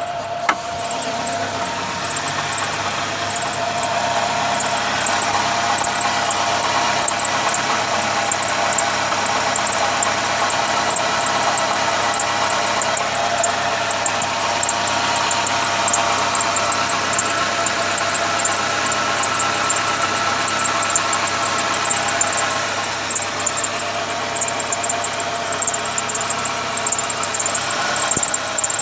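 Dacia Logan 1.6 engine running on a cold morning start, with a high-pitched whistle that pulses rapidly over the steady engine sound.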